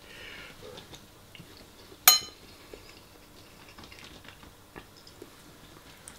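A metal spoon clinks once, sharp and ringing, against a ceramic bowl about two seconds in, with faint chewing and small cutlery clicks around it.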